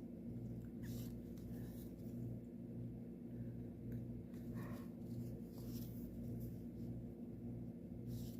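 Needle and embroidery floss being drawn through stamped cross-stitch fabric: a few faint, brief swishes spaced a second or more apart, over a steady low hum.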